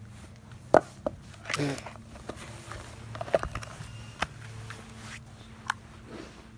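Sharp knocks and clinks of a shallow metal bowl being handled, set down and pawed at by a puppy, about five separate hits, with light rustling of dry grass between them. A short voice sound comes about a second and a half in.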